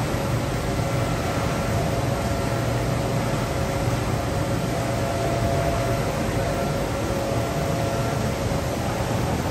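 GM XS500 label-converting machine running steadily, its rollers carrying a web of printed labels: an even mechanical hum with a low drone and faint steady whining tones.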